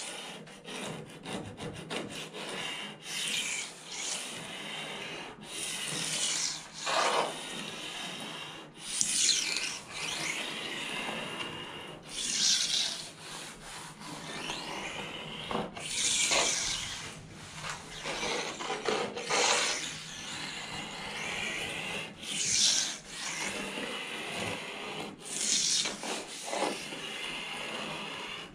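A thin razor blade scraping along the painted Royalex hull of a canoe in repeated, irregular strokes, each with a high, scratchy edge. It is taking off the high spots and old, mismatched paint, which comes away easily.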